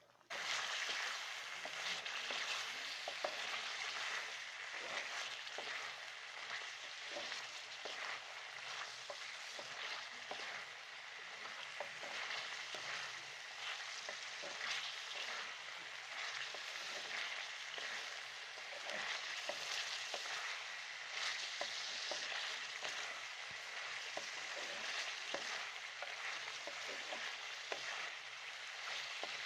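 Chicken karahi in cream sizzling as it is fried down in the pan, a steady hiss dotted with frequent small pops and ticks. It starts suddenly just after the opening.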